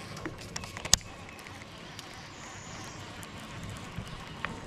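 Abu Garcia Max baitcasting reel after a cast: a sharp click about a second in, then the lure being reeled back with small ticks from the reel.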